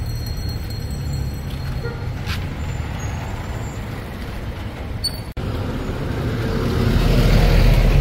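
Street traffic with a motorcycle engine running steadily close by. A brief drop-out comes a little past halfway, then engine and road noise grow louder near the end as vehicles pass.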